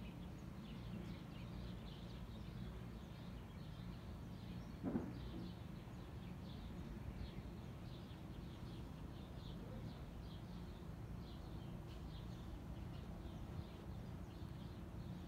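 Outdoor ambience: small birds chirping over and over in the distance above a steady low rumble, with one brief thump about five seconds in.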